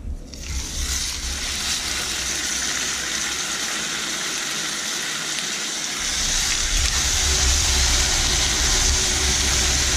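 Bacon-wrapped eye fillet steaks sizzling in hot oil in a frying pan. The sizzle starts as the first steak goes in and gets louder from about six seconds in, when the second steak is added.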